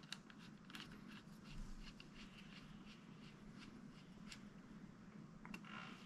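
Faint clicking and scratching of a small precision screwdriver turning a tiny screw into a laptop's internal frame, with the clicks thickest in the first couple of seconds and a few more near the end.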